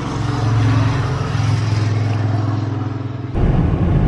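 A steady low vehicle engine hum. A little over three seconds in it switches abruptly to the louder low rumble of engine and tyre noise heard inside a car cabin at highway speed.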